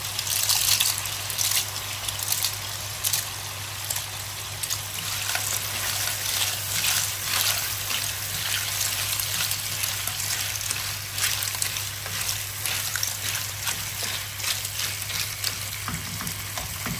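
Live clams in their shells tipped into a hot pan of olive oil and cherry tomatoes, sizzling hardest as they land, then frying with steady crackling sizzle as a wooden spoon stirs them through the sauce.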